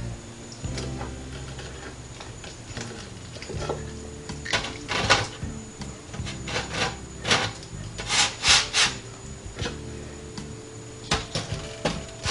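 Metal kitchen tongs clacking and scraping as frozen cod fillets are picked up from a plate and set down on a wire-mesh air fryer basket: a string of sharp clicks and rasps, the loudest cluster a little past the middle.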